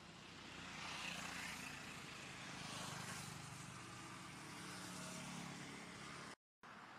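Faint outdoor background noise with a low, steady engine hum like distant vehicle traffic, swelling a little about a second in; the sound cuts out for a moment near the end.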